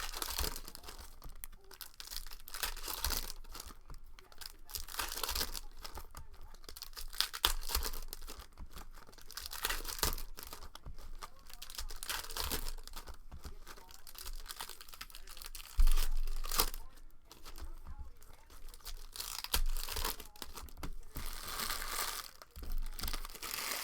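Plastic wrapping on trading-card hobby boxes and packs being torn and crinkled in irregular rustling bursts, with a few knocks of the boxes being handled, the loudest about two-thirds of the way through.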